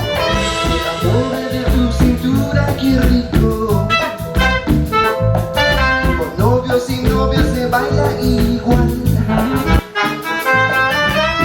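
Latin-style band music with a steady beat and several melodic parts, breaking off briefly about ten seconds in.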